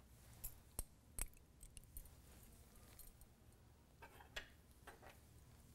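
Faint clicks and light taps of a wire test-tube holder being handled and clamped onto a glass test tube. There are two sharper clicks about a second in and a few softer taps around four seconds.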